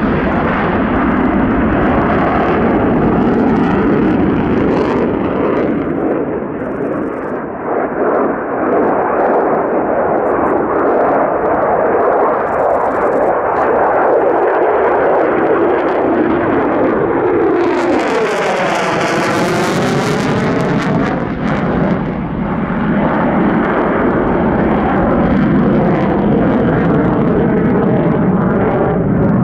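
Mitsubishi F-2 fighter's single F110 turbofan jet engine, loud and continuous as the jet manoeuvres overhead in a display. About two-thirds of the way through, a brighter, hissing surge swells as it passes closest, and the sound sweeps in pitch before settling back.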